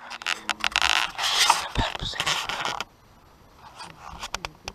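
Close rustling and scraping with sharp clicks for most of the first three seconds, then quieter with a few more clicks near the end.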